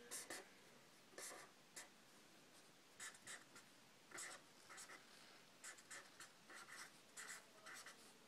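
Faint scratching of a pen writing on paper in short, irregular strokes.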